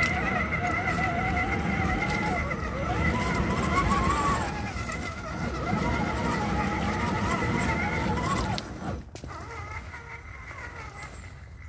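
Electric motor and gear whine of an RC rock crawler driving over stones, its pitch rising and falling with the throttle over a low rumble. The whine stops about nine seconds in.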